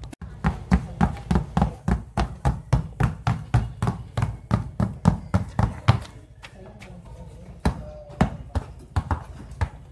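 Basketballs bouncing on asphalt in a fast two-ball dribbling drill, about four bounces a second, giving way after about six seconds to a few spaced single bounces.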